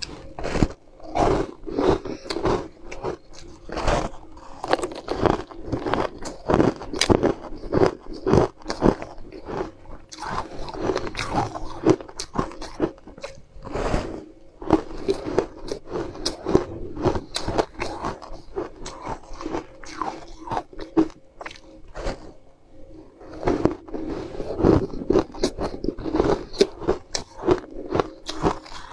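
Ice chunks coated in pink powder being bitten and crunched between the teeth close to the microphone: dense crisp crunches, several a second, with a few brief pauses.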